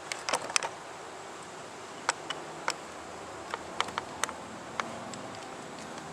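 Irregular small sharp clicks and ticks of crimping pliers, wire and crimping sleeve being handled, the loudest cluster about half a second in, over a faint steady background hiss.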